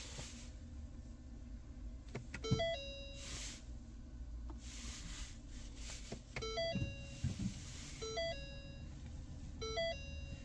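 A 2013 Ford Focus Electric's dashboard warning chime ringing over and over after the ignition is switched on, a three-note ding pattern repeating about every second and a half. It starts about two and a half seconds in. Dull clunks at about the same time and again a few seconds later are the high-voltage battery contactors closing.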